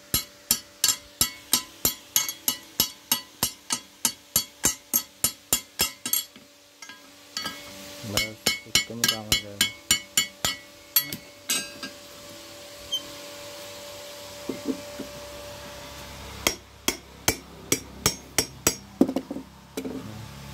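Steel hand hammer striking the iron pivot joint of a folding vegetable-cutter blade on a small anvil block, sharp ringing blows in an even run of about three a second. After a pause of a second or so there are further runs of blows, with shorter gaps between groups.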